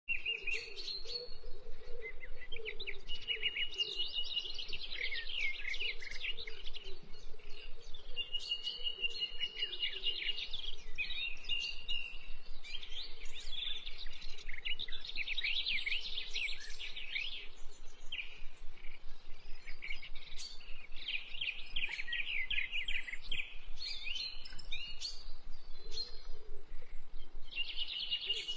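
Wild birds calling and chirping in forest: bursts of fast chirps again and again, with a held whistle-like note now and then, over a faint low hum in the first few seconds.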